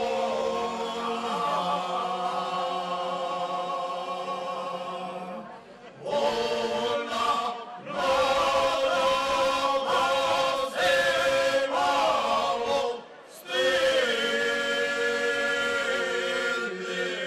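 A group of men singing traditional Serbian folk song unaccompanied, in long held phrases with a sustained low drone note under the higher voices. Short breaks for breath fall about 6, 8 and 13 seconds in.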